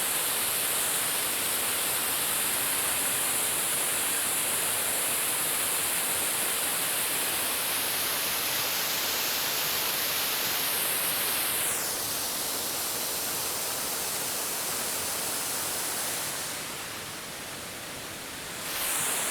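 Steady rushing of a waterfall, an even wash of noise. Its tone shifts slightly about two-thirds of the way through, and it dips in level for a couple of seconds before returning near the end.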